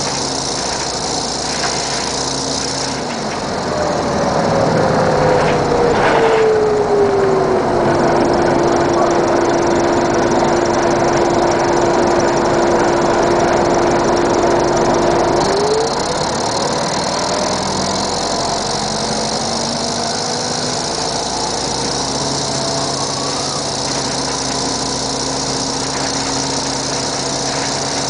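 1996 NovaBUS RTS city bus's Detroit Diesel Series 50 four-cylinder diesel, with Allison World VR-731 transmission, running steadily. About three seconds in, a whine slides down in pitch and holds level for about seven seconds while the sound grows louder. About halfway through the whine rises away and the engine note climbs back up.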